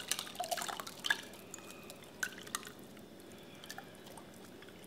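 Lye water solution poured from a stainless steel pitcher through a plastic mesh strainer into a bucket of soapmaking oils: a splashing pour through the first second or so, thinning to scattered drips.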